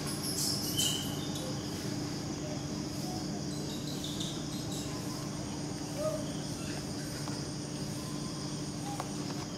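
Steady high-pitched insect chorus of crickets or similar insects, with a steady low hum beneath it. A couple of short high chirps sound about a second in.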